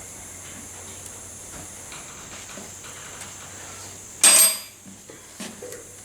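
Light metallic clicks of a hand tool working on a car battery's ground terminal, then one loud metal clank with a brief ringing about four seconds in.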